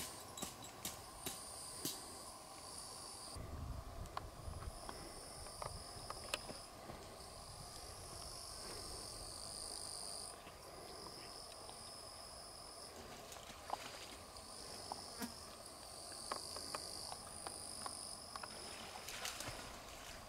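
Faint chirping of crickets in repeated phrases a couple of seconds long, with short gaps between them, under a steady background of insect noise. Scattered small clicks, and a brief low rumble about four seconds in.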